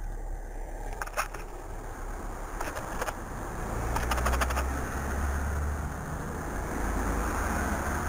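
Passing road traffic: a low engine sound that swells about halfway through and again near the end. Short clusters of light clicks come about a second in, around three seconds, and around four seconds.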